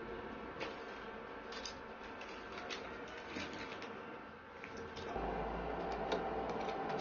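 Crinkling of a plastic noodle packet with small clicks and rustles as it is handled. About five seconds in, a steadier, louder hum sets in from the induction cooktop and the pan of Maggi noodles cooking on it.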